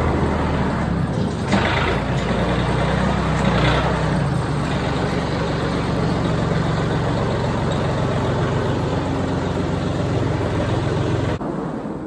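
John Deere compact utility tractor's engine running steadily as it drives into the barn, with two brief surges in the first four seconds; the sound cuts off suddenly near the end.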